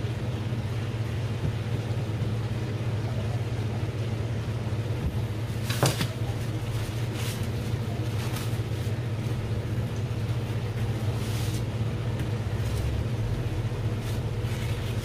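Paper towel rustling and crinkling as gloved hands press it over raw cutlassfish fillets to blot them dry, with a sharper rustle about six seconds in and more near the end. Underneath runs a steady low machine hum.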